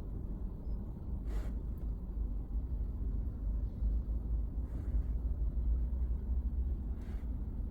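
Low, steady rumble of a car being driven, road and engine noise, with three faint brief noises spaced a couple of seconds apart.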